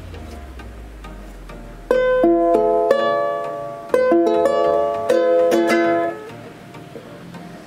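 Plastic ukulele played by hand: a short phrase of plucked notes and chords starting about two seconds in, ringing out and fading away near the end.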